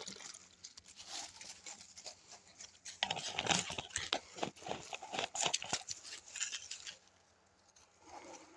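Crackling, crunching rustles of dry leaves and soil being stepped on, loudest in the middle and stopping about seven seconds in.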